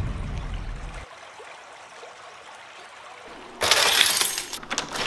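A bunch of keys jangling and clinking as a hand snatches them up from a countertop, starting suddenly about three and a half seconds in. Before that, the end of a music cue dies away in the first second.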